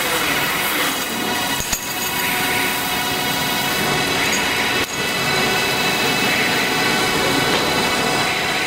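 Orkel MP2000 compactor running as it bales and wraps silage: a steady mechanical hum and clatter of its conveyors and drives, with several steady whining tones.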